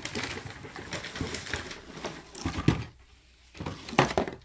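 Plastic toy vehicles being handled and knocked about: irregular clatter and rattling with a few sharper knocks, the loudest about two and a half and four seconds in.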